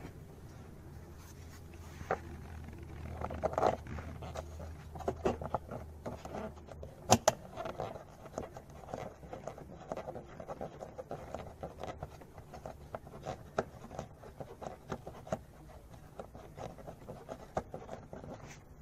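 Gloved hand working deep in a car's engine bay: scraping, rubbing and small irregular clicks and knocks of parts and fittings, with one sharp, loud click about seven seconds in. A low hum under the first seven seconds stops at that click.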